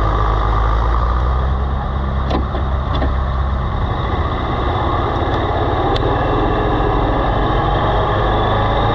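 Oliver tractor engine running steadily under load while pulling a moldboard plow through grass sod. A few faint clicks come through over the engine.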